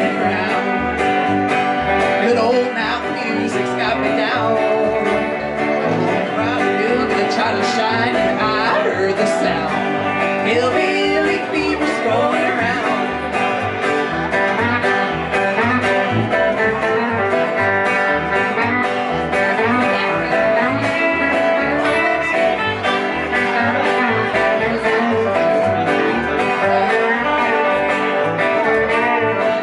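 Live country band playing: electric guitar and strummed acoustic guitar over an upright bass plucked in a steady beat.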